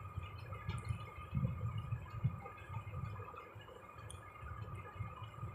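Low, uneven background rumble under a faint steady hum, with a few soft clicks.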